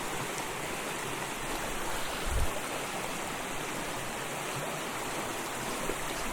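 Steady rushing of a mountain stream's current, with a brief low bump about two seconds in.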